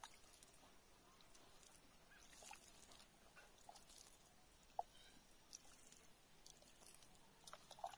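Near silence: water flicked by hand onto freshly sown soil, with faint soft pattering and a few faint short chirps.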